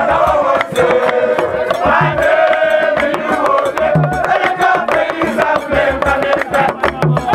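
Ompe traditional Ghanaian music: peg-tuned barrel drums beaten with stick and hand, giving deep strokes under a fast run of sharp clicking percussion, with voices singing along.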